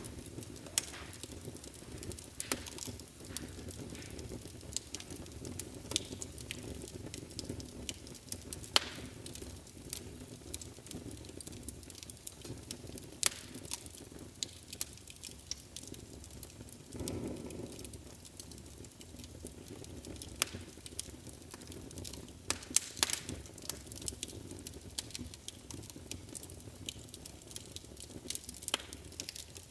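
Wood fire burning in a fireplace: a low, steady rush of flame with sharp crackles and pops scattered irregularly throughout. There is a brief low swell a little past halfway and a quick cluster of pops about three-quarters of the way in.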